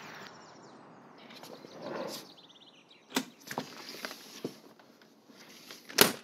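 Faint background noise with a few sharp clicks, the loudest near the end, after which the sound cuts off.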